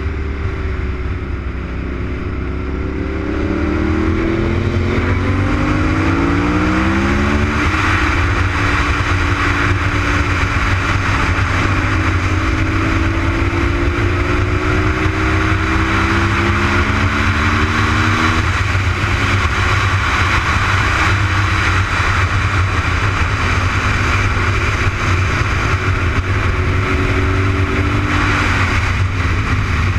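Honda RC51's 90-degree V-twin engine pulling hard on track, its pitch climbing steadily and then dropping sharply three times, under heavy wind rush on the microphone.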